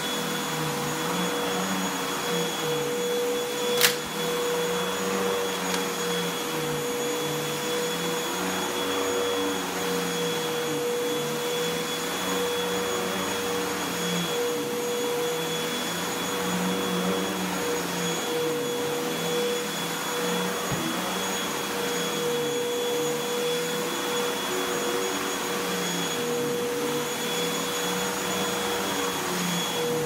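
Upright bagless vacuum cleaner running on carpet, a steady whine whose lower tone wavers as it is pushed back and forth. A single sharp click about four seconds in.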